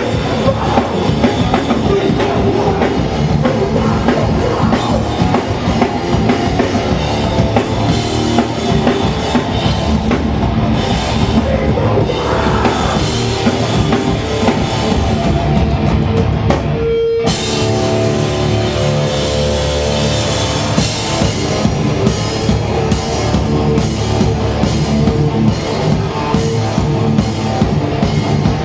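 Hardcore punk band playing live at full volume: distorted electric guitars over a fast, driving drum kit.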